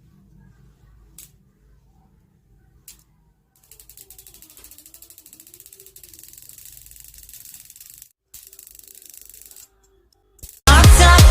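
A few faint single clicks, then a faint, fast, even run of mechanical ticking lasting about six seconds, from some small mechanism. Loud electronic music with a heavy bass starts near the end.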